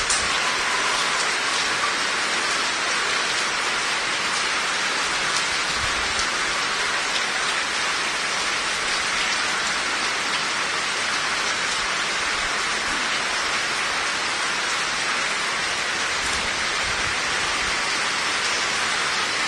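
Heavy rain pouring onto flat rooftops, a steady, even hiss.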